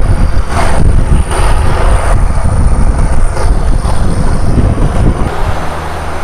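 Fishing boat's engine running at speed with rushing water and heavy wind buffeting on the microphone. About five seconds in, the buffeting eases and a steady low engine hum comes through.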